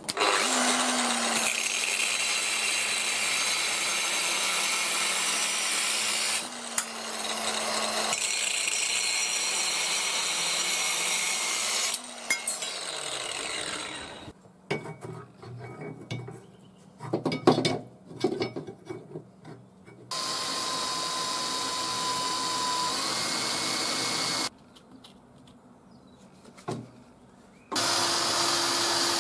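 Angle grinder with a thin cut-off disc cutting through a metal rod: a steady motor whine under a loud cutting hiss, broken briefly about six seconds in, then winding down at about twelve seconds. Scattered metal clanks and knocks follow, then another steady stretch of machine noise, and a grinder starting up again near the end.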